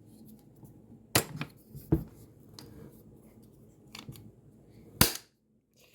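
Metal 30 cal ammo can being shut: a few separate sharp clicks and knocks of the lid and its latch, the loudest about five seconds in.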